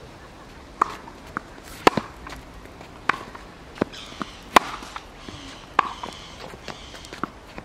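Tennis rally on a hard court: sharp pops of the ball off racket strings and off the court surface, roughly one every second, with footsteps moving on the court between them.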